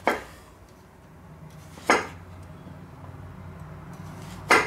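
Chef's knife cutting through a zucchini and knocking on a wooden cutting board, three slices about two seconds apart.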